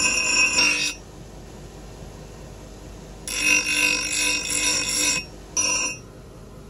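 Bench grinding wheel screeching as a steel kasi blade is pressed against it in passes: about a second at the start, a longer pass of about two seconds from about three seconds in, and a brief touch shortly after. The grinder's motor keeps running steadily between the passes.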